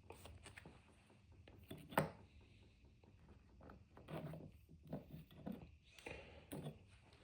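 Faint rubbing and light clicks of baseball trading cards being handled and shuffled. There is one sharper click about two seconds in and a busier patch of handling near the middle.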